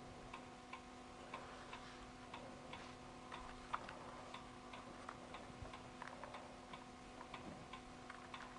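Faint, regular ticking, about two ticks a second, over a low steady hum, with one louder click near the middle.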